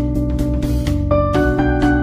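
Background music: a gentle instrumental tune with a steady beat and held notes.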